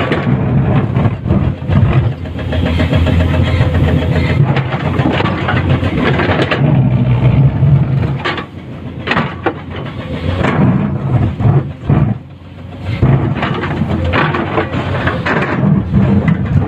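Komatsu PC210-10 hydraulic excavator working while digging: its diesel engine runs under varying load, easing off twice in the second half, with a few short knocks.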